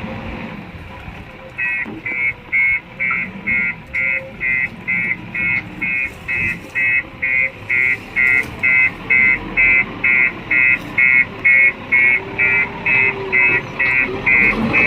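Vehicle reversing alarm beeping steadily, about two and a half beeps a second, starting about two seconds in, over a diesel engine running.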